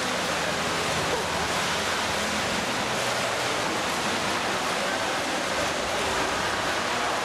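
Steady splashing of several swimmers doing front crawl in an indoor pool, a continuous wash of water noise.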